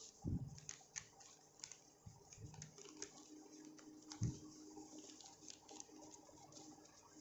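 Notebook pages being turned by hand: faint paper rustling and crinkling, with two soft thumps, one just after the start and one about four seconds in, as the notebook is handled.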